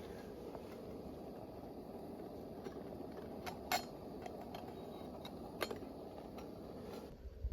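A few sharp, light clinks, the loudest about four seconds in and another nearly six seconds in, over a steady low rushing noise that cuts off abruptly near the end.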